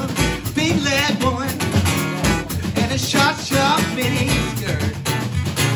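Live acoustic duo: a man singing over a strummed acoustic guitar, backed by a small drum kit with snare and a bass drum thump about every two seconds.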